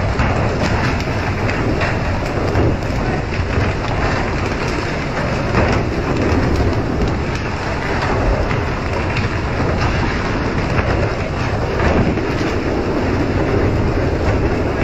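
Steady rush of water spray from the fishing boat's deck sprinklers hitting the sea, over the low rumble of the vessel under way.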